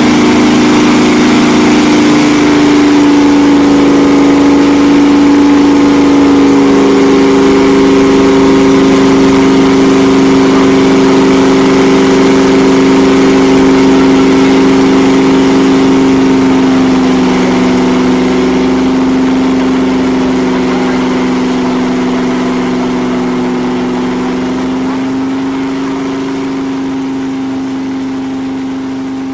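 Loud, steady engine drone of a car held at high revs in a burnout, its pitch stepping a few times rather than rising and falling, the whole sound slowly fading over the second half.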